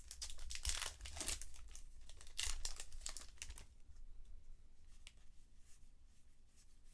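Foil wrapper of a 2020 Bowman 1st Edition baseball card pack being torn open and crinkled, in a run of rustling bursts over the first few seconds, then fainter handling.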